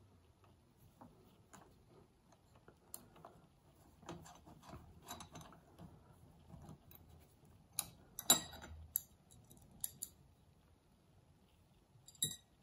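Small metal clicks and scrapes of a screwdriver taking out screws and lifting off the metal flywheel cover of a Hitachi TRK-8300E cassette mechanism. The clicks are faint and scattered, loudest in a cluster about eight seconds in, with a sharp click near the end.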